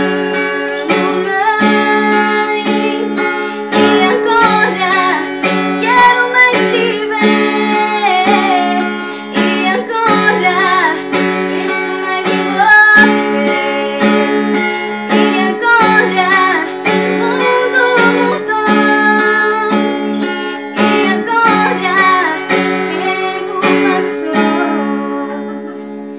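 Woman singing to a strummed acoustic guitar, the song winding down and ending near the end.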